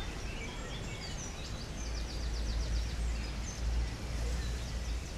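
Outdoor ambience: small birds chirping in quick repeated trills over a steady low rumble.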